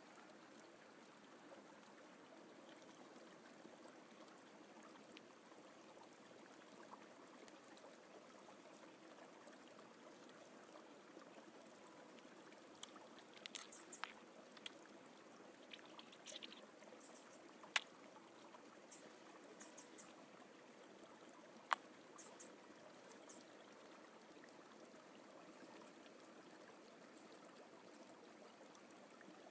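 Faint steady rushing of a nearby forest stream. Over the second half come scattered light clicks and ticks, two of them sharper and louder than the rest.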